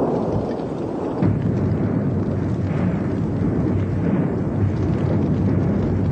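Volcanic eruption: a deep, continuous rumble that grows louder about a second in.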